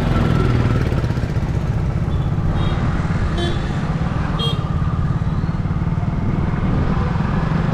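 A two-wheeler's petrol engine runs steadily while riding, with wind rumbling on the microphone. A few faint, short high beeps come around the middle.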